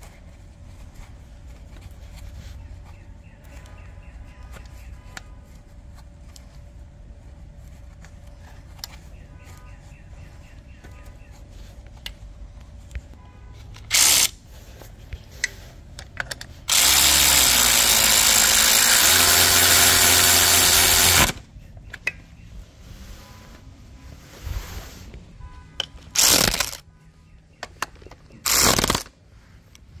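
A power tool running bolts in on the power steering pump mount: a brief burst a little before halfway, then about four and a half seconds of steady running that spins up at the start, then two more short bursts near the end.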